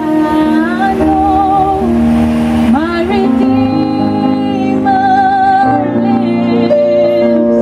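A woman singing a gospel song into a microphone through a PA, her long held notes wavering with vibrato over a sustained chordal backing.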